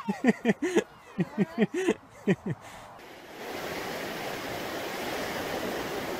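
A person laughing in a quick run of short "ha" sounds for about the first two and a half seconds, then, after a cut, steady ocean surf washing on a sandy beach.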